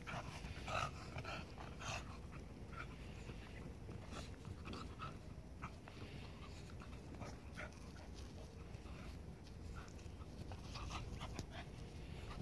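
A Cavapoo and a miniature poodle play-fighting, making short scattered dog vocal noises, thickest in the first two seconds and again near the end.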